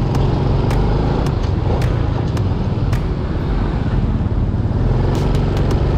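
Motorcycle engine running steadily while the bike is ridden, with road and wind noise.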